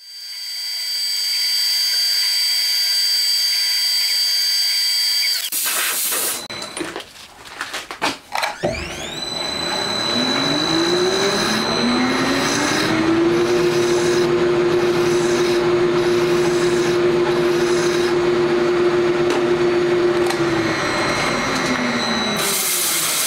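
Metal lathe running with a steady whine. After a break it spins up with a rising whine and runs steadily while the spinning part is worked by hand, with a hiss of cutting over it. Near the end it slows down with a falling whine.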